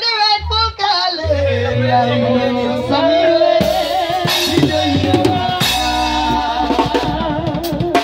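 Live gospel band playing on drum kit and bass under long, wavering held vocal notes, with cymbal crashes about halfway through.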